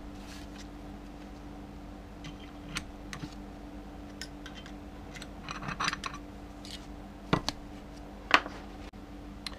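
Steel transmission parts being handled on a workbench: scattered clinks and knocks as clutch drums and small parts are picked up and set down, the two loudest near the end, over a steady low hum.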